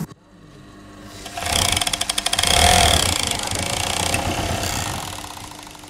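Sewing machine stitching at speed, a fast, even run of needle strokes that fades in, holds, and fades out.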